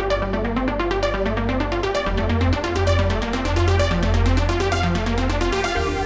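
Roland SH-201 synthesizer playing a trance patch: a fast, rhythmic pulsing sequence of notes stepping up and down in pitch over a deep bass.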